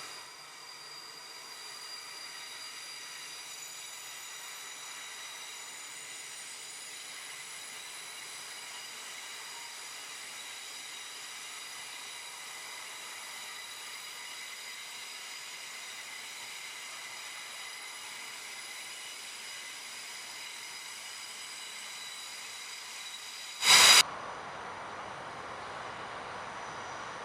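Steady hiss with several thin, high, steady ringing tones from a train at the station platform, left after a louder train sound fades out. About 24 seconds in, a very short, loud burst, after which the sound goes duller.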